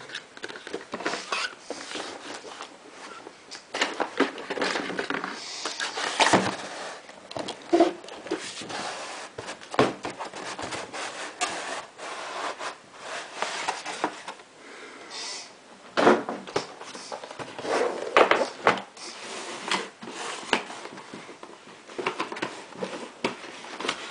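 Cardboard box and packaging of a keyboard being handled and opened by hand: irregular rubbing and scraping with scattered sharp knocks, the loudest about six seconds in and again around sixteen and eighteen seconds in.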